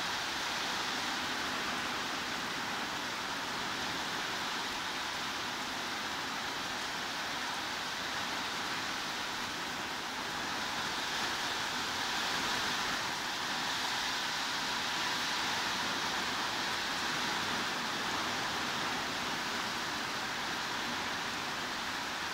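Heavy rain falling steadily: an even, unbroken hiss with no single drops or knocks standing out.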